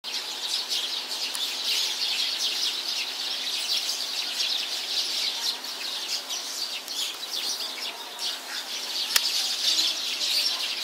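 A flock of Eurasian tree sparrows chattering, many short chirps overlapping into a continuous din, with a single sharp click about nine seconds in.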